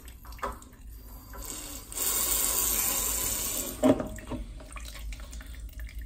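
Water spurting from an opened radiator bleed valve into a plastic jug for about two seconds, draining water to lower an over-pressurised central heating system; a sharp knock as it stops.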